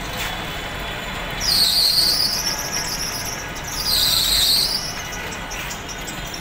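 Two loud high-pitched squeals over steady street noise. The first starts about a second and a half in and lasts about a second and a half; the second comes about a second later and is shorter. Each dips in pitch and rises again.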